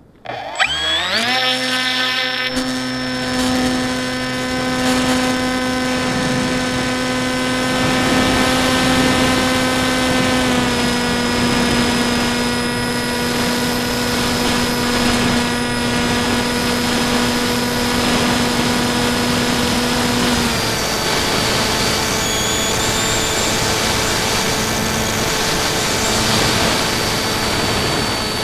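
Electric motor and propeller of an FX-61 flying wing, heard from a camera on board. About half a second in, the motor spools up with a quickly rising whine, then holds a steady high whine. The whine drops slightly in pitch about ten seconds in and more clearly about twenty seconds in, with wind rushing over the microphone throughout.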